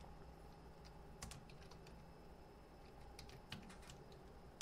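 Faint typing on a computer keyboard: a few scattered, irregular keystroke clicks.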